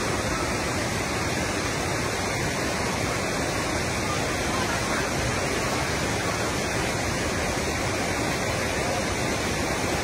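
River water running over rocks and small rapids, a steady rush with no change.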